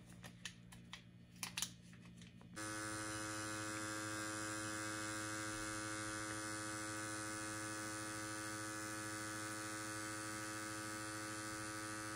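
A few faint clicks, then about two and a half seconds in a pen-style permanent-makeup machine switches on and buzzes with a steady electric hum as it is worked against the eyebrow skin.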